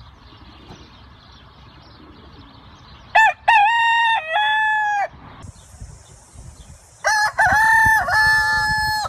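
Rooster crowing twice, two long cock-a-doodle-doos about two seconds apart, over faint outdoor background, with a steady high hiss between the crows.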